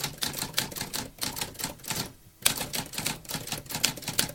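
Typewriter keys clacking in a quick, irregular run of strikes. The typing pauses briefly about two seconds in, then resumes with one loud strike.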